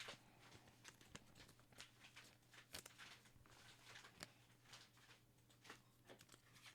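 Near silence with faint scattered clicks and rustles of trading cards being handled and sorted, over a low steady hum.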